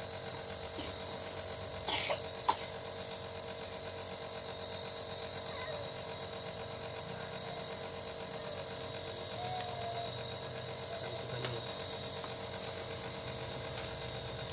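A compressor nebulizer runs with a steady mechanical hum, misting a dose of saline and Bisolvon solution for a baby's chesty cough and cold. A short knock and a sharp click sound about two seconds in.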